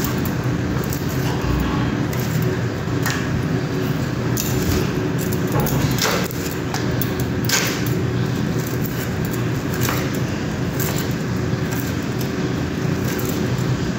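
Moringa drumstick pods being cut into short pieces with a small blade: scattered sharp snaps and clicks over a steady hum.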